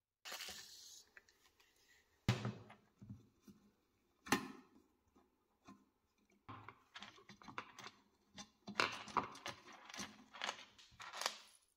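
Rusted metal chain links clicking and scraping as pliers and fingers work them loose from a cast iron scale mirror frame. A few sharp single clicks come in the first half, then a quick run of small clicks and scrapes near the end.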